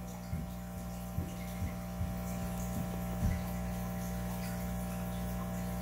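Steady low electrical hum, with a few faint soft knocks in the first few seconds.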